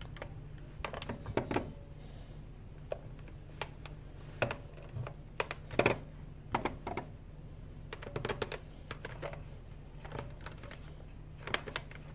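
Irregular light clicks and knocks of a steam iron being set down and pressed over fabric and fusible interfacing on a towel-padded board, over a faint low hum.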